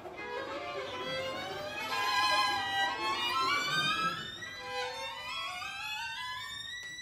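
Violins playing overlapping sliding glissandi, with the pitches mostly gliding upward, loudest about two seconds in.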